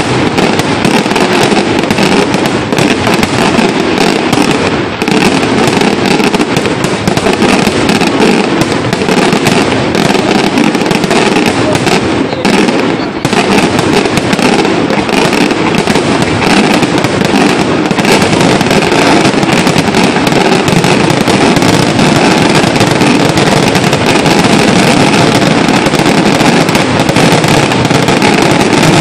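A fireworks display: aerial shells and crackling bursts go off in a dense, unbroken barrage, very loud throughout.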